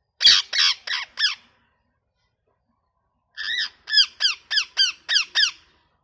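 Ringneck parakeet squawking: four calls in quick succession, then after a pause of about two seconds a faster run of about eight down-slurred calls.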